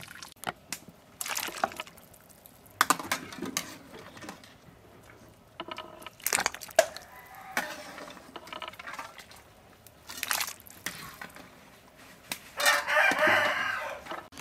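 A rooster crows once near the end, a call of about a second and a half. Before it come several short, scattered knocks and clatters.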